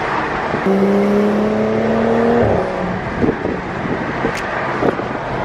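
A BMW's engine heard from inside the cabin, pulling under acceleration, its note rising slowly for about two seconds before it breaks off abruptly. Steady road and tyre noise continues after it.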